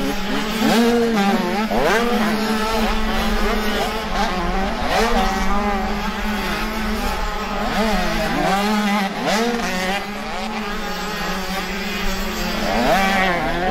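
Several motocross motorcycles racing on a dirt track, their engines repeatedly revving up and easing off as they accelerate and brake through the course.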